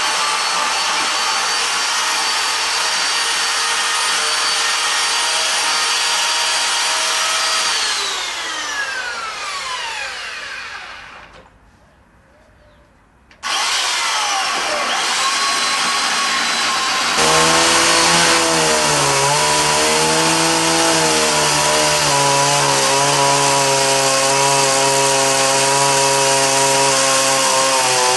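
Chainsaw running at high revs, cutting into wood. About eight seconds in the engine note falls away and dies down to near quiet for a couple of seconds, then the saw is suddenly back at full speed, and it runs louder and steadier for the second half.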